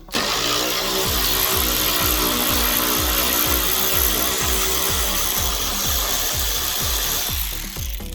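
A power tool running steadily on the car's metal, starting suddenly and fading out near the end, over background music with a steady beat.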